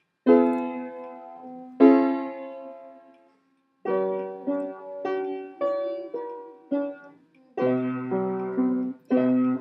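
Chords played on a piano or keyboard: two chords left ringing, a short pause, then a string of shorter chords, with deeper bass notes joining in near the end. The chords are being tried out to find the accompaniment for a song.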